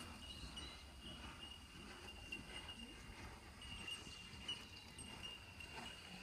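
Quiet outdoor ambience: a steady high-pitched insect trill, like crickets, over a faint low rumble.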